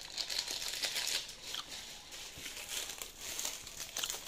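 Cooked instant noodles being tossed and squeezed by hand with their seasoning in a metal bowl, giving an irregular, busy crackling rustle.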